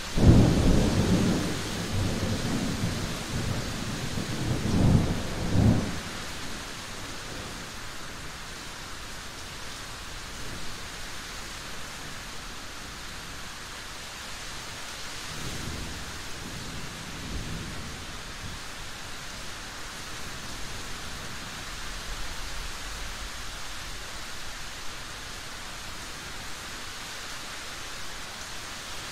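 Thunder over steady rain. A loud clap right at the start rolls on as a rumble for about six seconds, and a fainter rumble comes about halfway through, while the rain hiss carries on.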